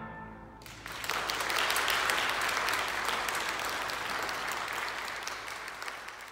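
The final chord of a flute, cello and piano trio rings away. About a second in, the audience breaks into applause, which slowly dies down near the end.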